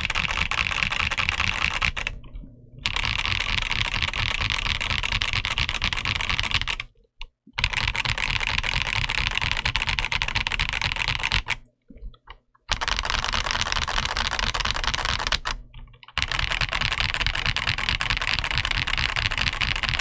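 Fast, continuous typing on an XVX S-K80 mechanical keyboard with Outemu Clear Black linear switches and PBT dye-sublimated keycaps: a dense stream of key clacks in long stretches, broken four times by brief cuts to silence.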